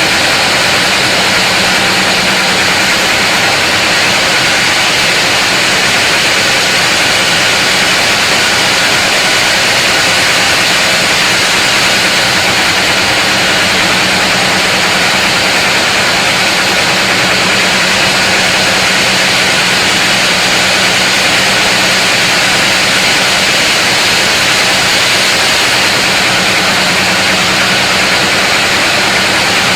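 Sawmill saw running through a large mahogany log: a loud, steady, hissing cutting noise over an unchanging low hum.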